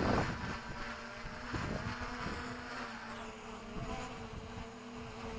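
DJI Mavic Pro quadcopter's propellers buzzing at a steady pitch, with a little wind rumble on the microphone.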